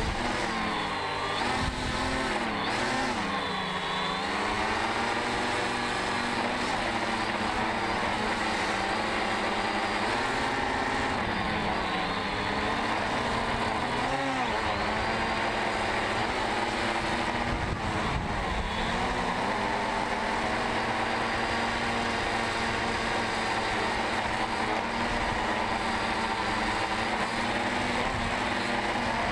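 DJI Phantom 2 quadcopter's motors and 9-inch carbon-fibre propellers buzzing in flight, heard close from the onboard camera. The pitch swoops up and down as the throttle changes, most sharply in the first few seconds and again a few times later, and holds steady in between.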